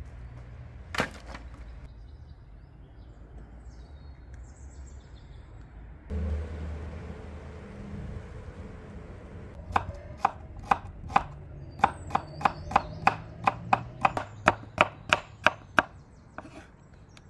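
Kitchen knife chopping an onion on a wooden cutting board: a steady run of sharp knocks, about three a second for some six seconds. Earlier there is a single sharp knock.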